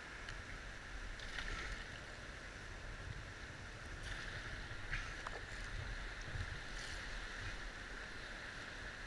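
Whitewater rapids rushing steadily around a kayak, with a low rumble underneath and a few faint splashing ticks.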